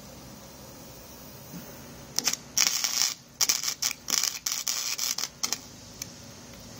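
Wire-feed welder arcing on a steel angle-iron frame: a string of about six short, loud bursts of arc noise that start about two seconds in and stop about a second before the end.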